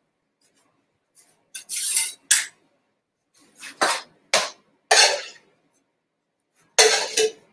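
A metal spoon scraping and knocking against a frying pan in a handful of short, separate bursts, stirring and tossing sauced eggplant.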